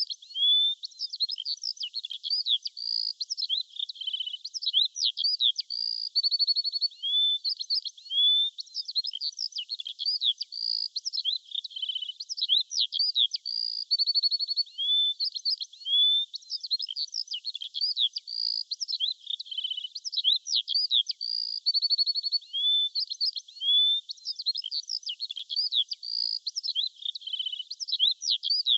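Birdsong: quick high chirps, short rising whistles and trills, with the same run of calls coming back about every four seconds.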